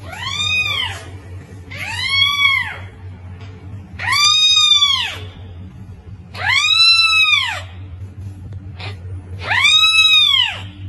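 Newborn kitten, about a week old, meowing five times: loud, high, thin cries about a second long each that rise and fall in pitch, a couple of seconds apart, over a steady low hum.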